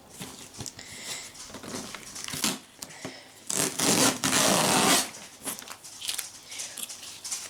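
A taped cardboard parcel being wrestled open: rustling and knocking of cardboard, then a loud tear of about a second and a half in the middle, followed by more rustling.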